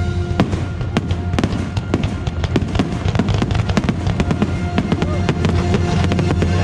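Fireworks shells bursting in rapid bangs and crackles, several a second, over the show's music holding sustained chords.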